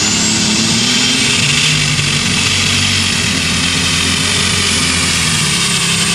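Alcohol-burning Allis-Chalmers D21 super stock pulling tractor engine running at full power under load on a pull. A high turbocharger whine climbs in the first second and then holds.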